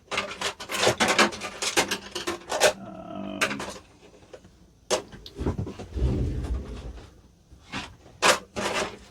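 Hand tools clattering and scraping on a wooden surface as someone rummages for a screwdriver: a run of quick clicks and rattles, then a dull low rumble of handling about six seconds in, and a few more clicks near the end.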